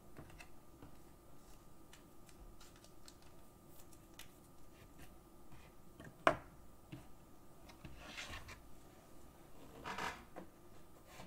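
Faint handling of trading cards: scattered light ticks, one sharp click about six seconds in, and short rustles near eight and ten seconds.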